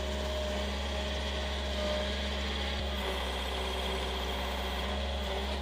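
Skid steer engine running steadily, heard from inside the operator's cab while the brush grapple works.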